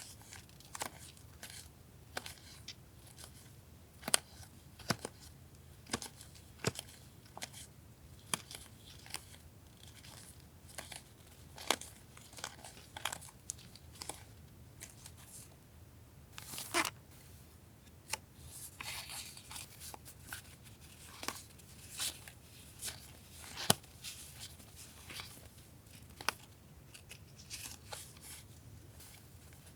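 Paper and plastic stationery packaging being handled at a desk: scattered sharp taps and clicks, with short bursts of rustling and crinkling. A longer rustle comes about 17 seconds in.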